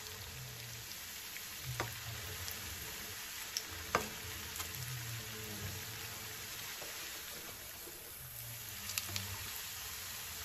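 Lauki and gram-flour kofta balls deep-frying in hot oil in a frying pan: a steady sizzle with small crackles. A few sharp clicks come over it, the loudest about four seconds in.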